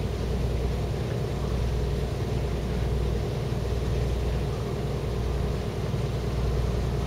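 An engine idling with a steady low rumble that does not change.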